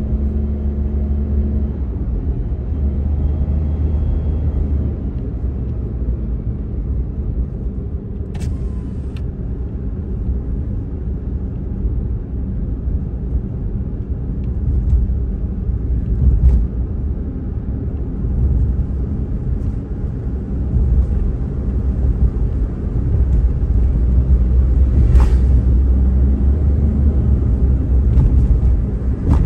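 Car driving along a road, heard inside the cabin: a steady low rumble of engine and tyres, with a few brief knocks along the way.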